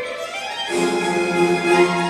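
Orchestral classical music led by violins, held string notes with a change of chord about two-thirds of a second in, played back over a high-end hi-fi system in a show demo room.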